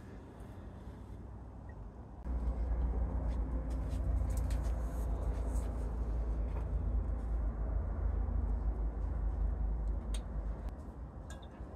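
Wind rumbling on the microphone, a deep steady buffeting that starts about two seconds in and eases off near the end, with a few light clicks near the end.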